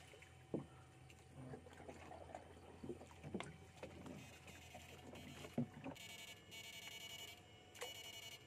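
Scattered soft knocks and water sloshing from a fishing pole and small boat, then an electrofishing rig's electric buzz coming on in two bursts in the last few seconds.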